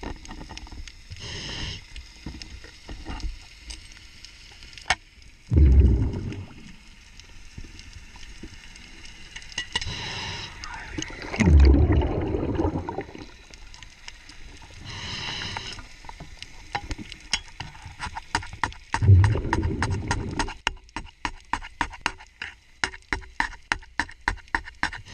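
A scuba diver's regulator breathing underwater: hissing inhalations alternate with rumbling bursts of exhaled bubbles every few seconds. About three-quarters of the way in, fast rhythmic scraping strokes begin, about three or four a second, as a hand scraper is worked over a boat's rudder to clean off fouling.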